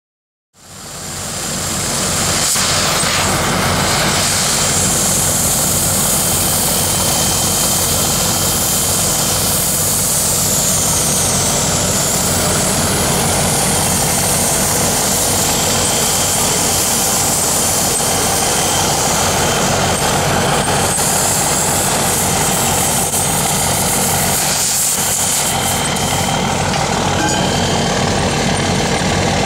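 Oxy-acetylene cutting torch hissing steadily as it bevels a steel pipe, over a steady engine drone. The sound comes in about half a second in and holds level throughout.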